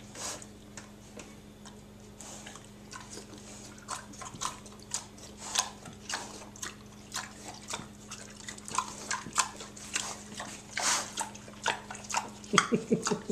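Two pigs eating ice cream off a spoon, wet smacking and chomping in quick irregular clicks. Near the end there is a rapid run of short grunts.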